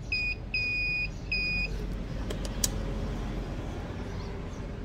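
An electronic beeper sounds three steady high beeps in a row, short, long, short, followed by a few small sharp clicks.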